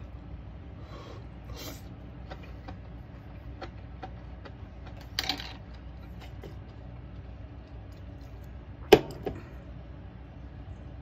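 Enoki and egg omelette cooking in a hot sandwich maker over a portable gas burner: a steady low hiss, with scattered light clicks and taps. There is a short clatter about five seconds in and a sharp metallic clink about nine seconds in, the loudest sound.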